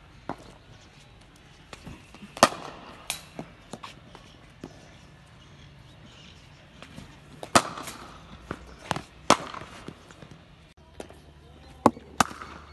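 Cricket bat striking a cricket ball: several sharp cracks a few seconds apart, with softer knocks of the ball landing and bouncing in between.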